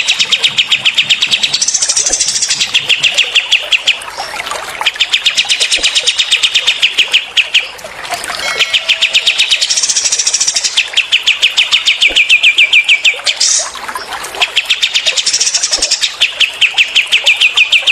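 Songbirds singing long, rapid machine-gun trills of evenly repeated sharp notes (the 'tembakan' rapid-fire song of cililin and kapas tembak birds), broken every few seconds by shorter, higher-pitched bursts.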